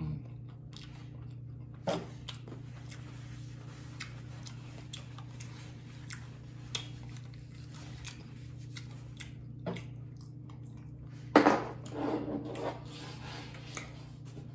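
A person chewing fried chicken wings close to the microphone, with scattered small mouth clicks over a steady low hum. There is a louder burst of sound about eleven seconds in.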